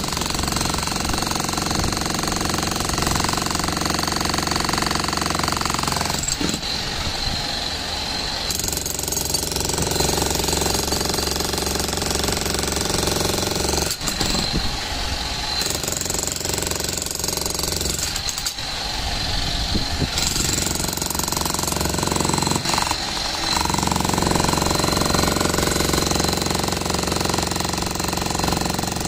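Bosch GSH 11 E electric demolition hammer chiselling into concrete, its rapid hammering running almost without pause and changing briefly a few times as it bites into the slab.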